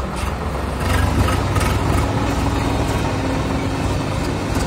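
Swaraj 855 FE tractor's three-cylinder diesel engine idling steadily, a little louder from about a second in.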